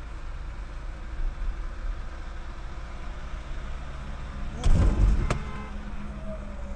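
Steady low engine and road rumble inside a moving car, picked up by a dashcam. About two-thirds of the way through comes a brief loud thump, with a sharp knock just after it.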